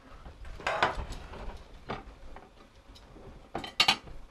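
Scattered light clicks and knocks of dishes and utensils being handled and set down on a kitchen counter, with two sharper clacks in quick succession near the end.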